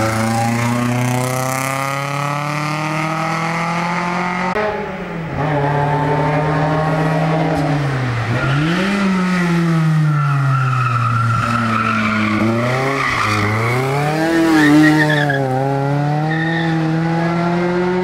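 Race-car engines at full throttle on a hill climb. A Toyota Celica's revs climb steadily as it accelerates out of a hairpin. After a cut, a Ford Escort passes with its engine revs rising and falling several times through gear changes.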